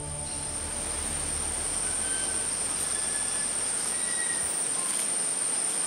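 Forest ambience: insects keep up a steady, high-pitched drone over a hiss, with a few faint bird notes. Low notes of background music fade away over the first half.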